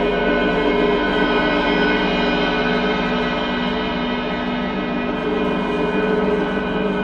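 A gong's sustained ring: many overlapping steady tones held at an even level, with no fresh strike.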